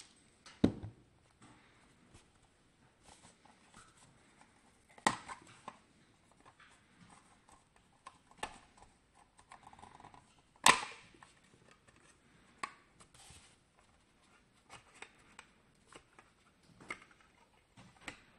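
Scattered sharp clicks and knocks of a mini PC being handled and taken apart. Three stand out: one about half a second in, one about five seconds in, and the loudest about eleven seconds in, which rings briefly after it.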